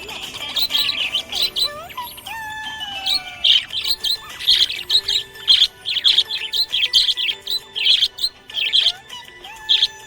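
Budgerigar chirping: a rapid, continuous series of short high chirps, mixed with a few lower sliding whistles.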